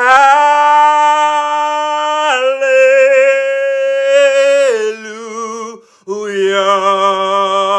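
A solo voice singing an unaccompanied gospel melody in long held notes with vibrato: four sustained notes, each a little lower than the one before, with a short breath about six seconds in.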